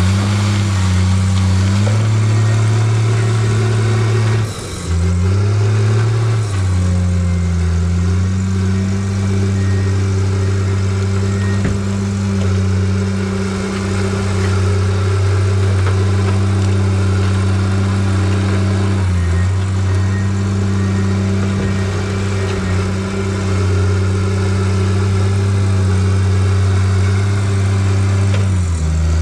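Crawler dozer's diesel engine running steadily under load. Its speed dips and picks back up about five seconds in, and briefly again after about nineteen seconds.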